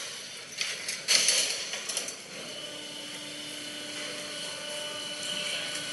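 Speed Pak cardboard baler running: loud clattering and knocking in the first two seconds, then a steady machine hum from its hydraulic pump motor as the press works.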